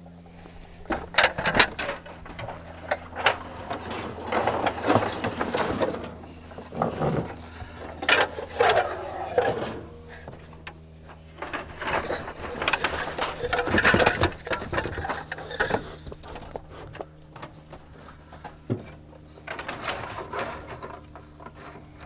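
Wooden beehive parts and frames knocking and clattering as they are handled and lifted out of a cardboard box, over a steady low hum.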